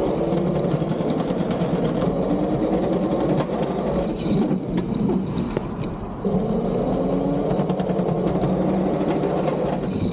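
Stock 250 W brushed electric motor of a Razor Ground Force drift kart, over-volted on a 52 V battery, whining as the kart drives and rising in pitch as it speeds up. It eases off between about three and a half and six seconds in, then winds up again.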